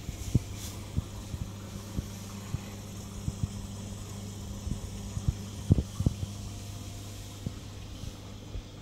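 Steady low hum of an aquarium filter pump, with scattered low knocks and thumps, the loudest a little under six seconds in.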